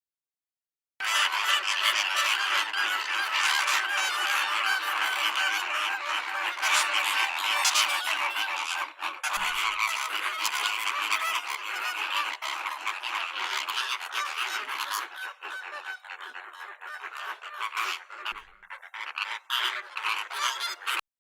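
A flock of flamingos honking and calling over one another in a dense, goose-like chorus. It starts about a second in and thins out in the last few seconds.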